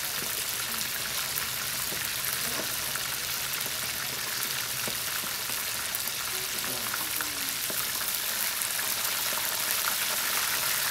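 Whole mojarras frying in hot oil in a pan: a steady sizzle full of fine crackling pops, growing a little louder near the end.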